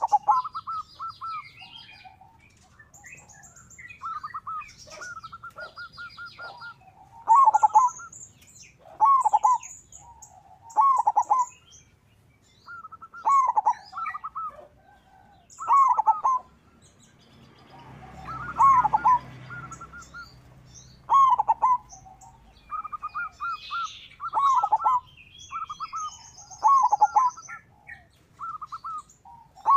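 Zebra dove (perkutut) cooing, repeating its short phrase of quick notes about every two seconds. Other small birds chirp thinly and higher in the background.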